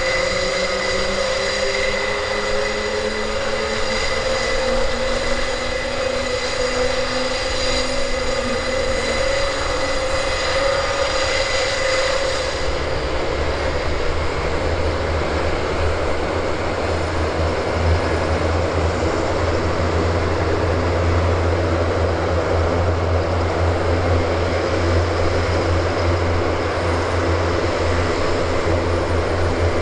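Airbus A400M's four TP400-D6 turboprop engines running on the ground after start-up. It is a steady propeller drone with whining tones, one pitch climbing slowly over the first several seconds. About twelve seconds in, the sound shifts to a deep, heavy low drone.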